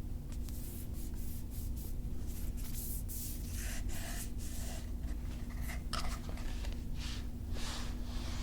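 Ruger 10/22 rifle being handled: a run of short scrapes and rubs of hands and parts against the gun, with a few sharp clicks, the clearest about six seconds in.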